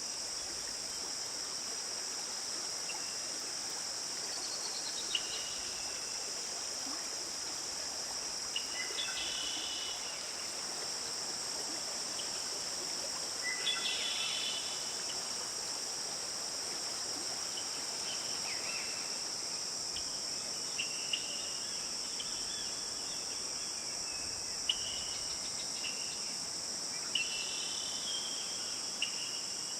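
Forest ambience: a steady, high-pitched chorus of insects trilling, with short bird chirps scattered throughout.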